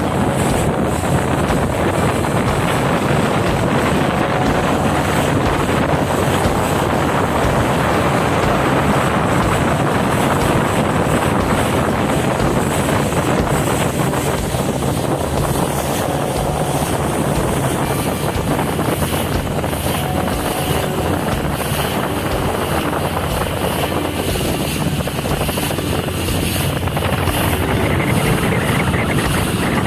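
Steady rush of water and wind from a ship underway on a calm sea, with a low, even drone beneath it.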